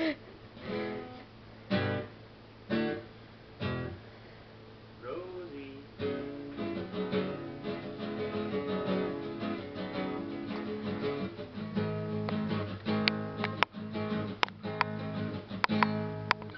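Acoustic guitar being played: a few single strums about a second apart, then continuous strumming and picking from about six seconds in.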